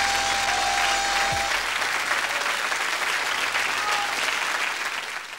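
Audience applauding, with the closing music ending about a second and a half in. The applause fades out at the end.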